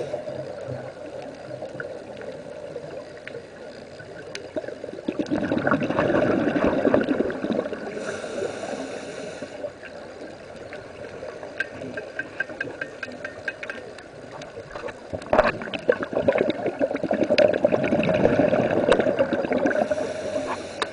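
Scuba regulator breathing underwater, picked up through the camera housing: two long bubbling exhalations, one about a quarter of the way in and one in the last quarter, with a short hiss of inhaling after each. Faint scattered clicking in between.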